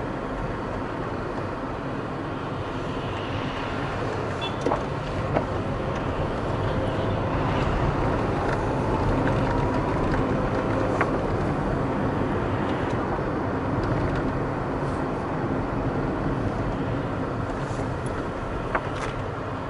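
A car driving through city traffic: steady engine and road noise, with a few short clicks along the way.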